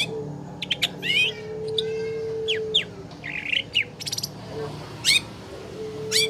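Long-tailed shrike (cendet) singing: a run of sharp, quick whistled sweeps, rapid trills and a short harsh chatter, repeated with brief gaps. A low steady hum comes and goes twice beneath it.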